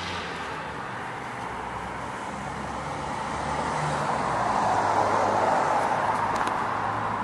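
Road traffic noise, with a passing vehicle that swells and fades about halfway through; a couple of faint clicks near the end.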